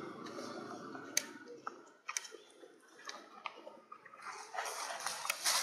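A few sharp, scattered clicks and crackles over a soft rustling hiss. The hiss drops away for a couple of seconds in the middle and comes back near the end.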